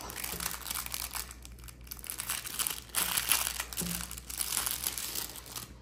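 Thin clear plastic packaging sleeve crinkling irregularly as fingers work it open by hand.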